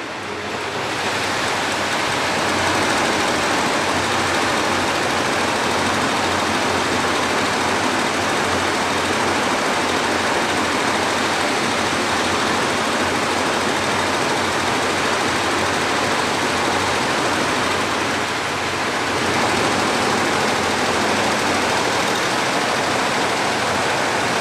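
A 15-head Richpeace multi-head embroidery machine running steadily. Its noise builds over the first two seconds, then holds loud and even.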